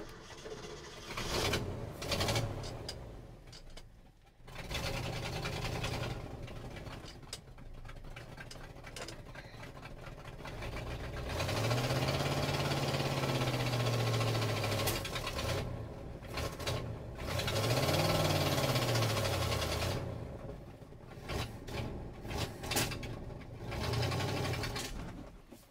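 1968 Ford F350's 360 cubic-inch FE V8 sputtering for the first few seconds, then running and revved up and down twice as the truck strains to pull out. It is running only on fuel poured into the carburetor bowl, and the truck will not roll, which the owner puts down to a front brake that may be locked up.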